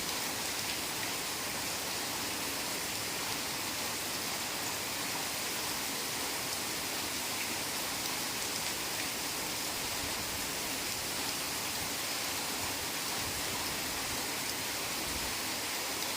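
Heavy rain falling steadily, a dense even hiss of drops with no single strikes standing out.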